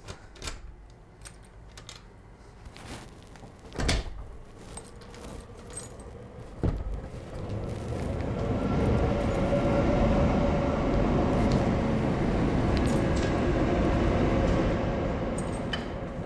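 Keys jangling and clicking in a door lock, with a couple of sharp knocks as the door is worked open. In the second half a loud, steady rushing rumble swells up, holds and fades near the end.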